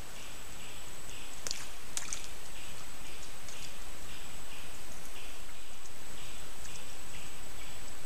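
Rainforest creek ambience: insects calling in a steady pulsing rhythm, about two pulses a second, over a thin high whine and a background hiss. Two sharp ticks or small splashes come about one and a half and two seconds in.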